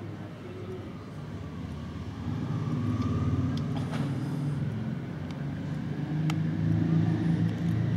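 Formation of Aermacchi MB-339 jet trainers passing overhead: a deep, steady jet rumble that grows louder about two seconds in and swells again near the end.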